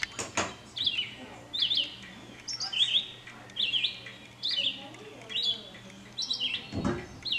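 A songbird calling over and over: short, high chirps that slur downward, often in pairs about a second apart. There is a brief knock just after the start and a low thump near the end.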